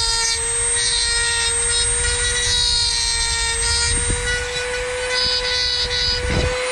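Dremel rotary tool running at high speed with a steady whine, its bit grinding plastic off the rim of a hard-hat ear muff cup in a series of short scraping passes.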